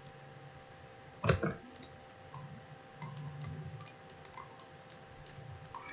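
A few scattered computer mouse clicks over a faint steady electrical hum, with one louder short sound about a second in.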